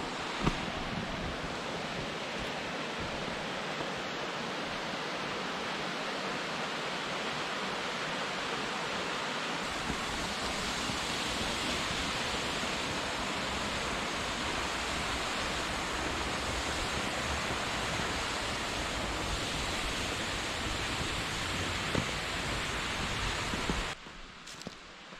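Steady rushing water, an even hiss spread across all pitches. It drops away suddenly about a second before the end, leaving a much quieter outdoor background.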